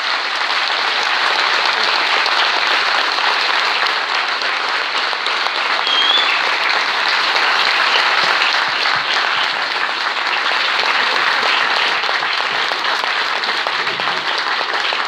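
A hall audience applauding: a long, steady round of clapping from many people at the end of a speech.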